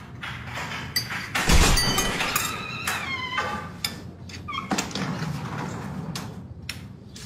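Clicks and knocks of cups and dishes at a breakfast table, with a short falling squeak about three seconds in.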